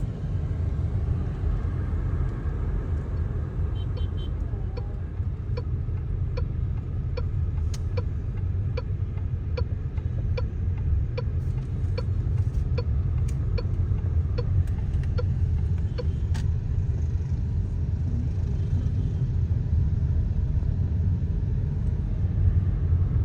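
Vehicle driving along a road, a steady low rumble of engine and tyres. From about four seconds in to about sixteen seconds a turn signal ticks evenly, a little faster than once a second, then stops.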